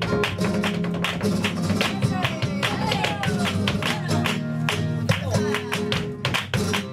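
Flamenco guitar playing soleá por bulerías, with rapid, sharp percussive strikes of flamenco percussion in dense rhythm over it.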